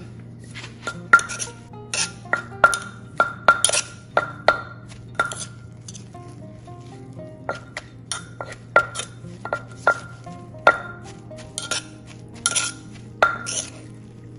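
Wooden pestle and metal spoon knocking in a clay mortar as shredded green mango is lightly pounded and tossed. Sharp knocks with a short ring come about two a second, in two runs with a pause of a second or two between them.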